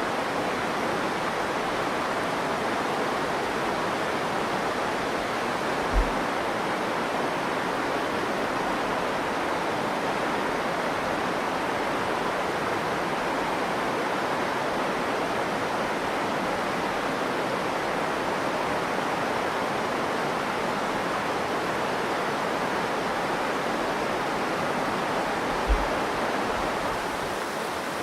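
Virgin River water flowing: a steady, even rush of water. Two brief low thumps stand out, one about a fifth of the way in and one near the end.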